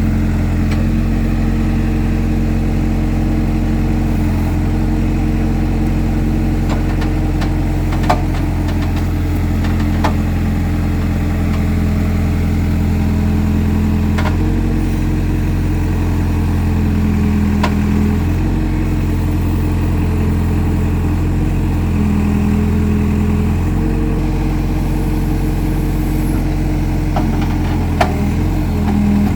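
Engine of a digging machine running steadily, its drone shifting slightly a few times, with a few short sharp knocks or clanks over it.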